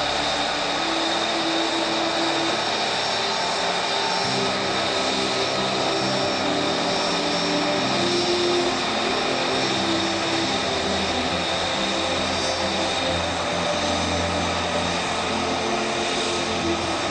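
Turbine aircraft engines running steadily: a continuous rush of noise with several high, steady whining tones over it.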